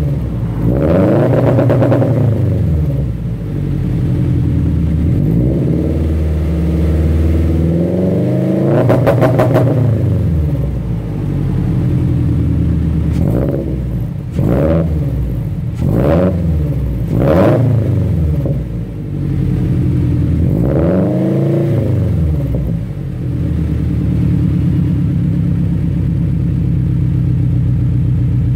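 Subaru BRZ's flat-four engine, breathing through catless unequal-length headers and a 2.75-inch downpipe into a resonated 3-inch single-exit catback, being revved from idle. There is a rev about a second in, a longer one around nine seconds, four quick blips, another rev about twenty-one seconds in, and then it settles to a steady idle.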